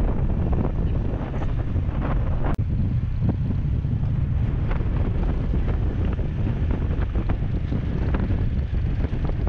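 Wind buffeting the microphone of a moving motor scooter, a heavy low rumble, with the scooter's motor and road noise beneath it. A brief break in the sound about two and a half seconds in.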